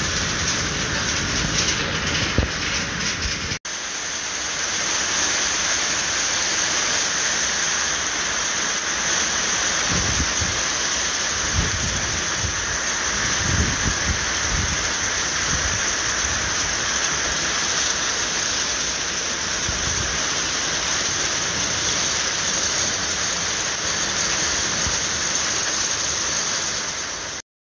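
Heavy rain mixed with hail pelting down steadily, a dense even hiss of falling water and ice. There is a brief break about three and a half seconds in, and the sound stops abruptly near the end.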